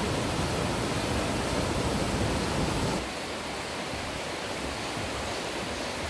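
Mountain stream rushing over boulders and small cascades: a steady rush of water, a little quieter from about three seconds in.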